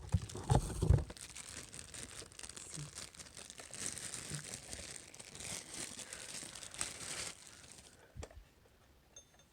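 Packaging crinkling and tearing as it is unwrapped, with a couple of knocks at the start. The rustling stops about seven seconds in, and a single click follows.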